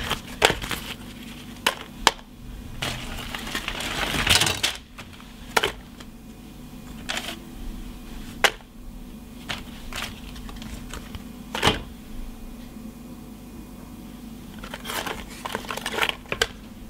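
Savoy cabbage leaves being handled and dropped into a plastic bowl on a kitchen scale: crisp leaf rustles and crackles, with scattered sharp clicks and taps at irregular times and a longer rustle a few seconds in. A faint steady hum runs underneath.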